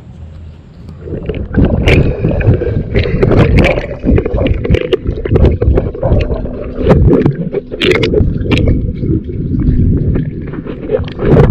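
Swimming-pool water heard by a submerged camera: muffled churning and bubbling of water, with scattered sharp clicks and knocks, starting about a second in as the camera goes under.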